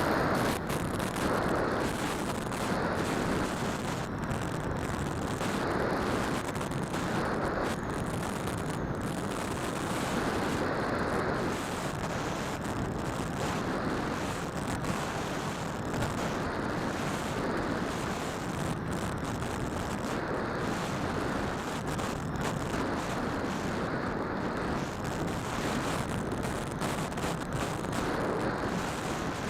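Phantom quadcopter's motors and propellers in flight, heard from a keychain camera mounted on the drone: a steady dense rush mixed with wind on the microphone, swelling and easing slightly every second or two.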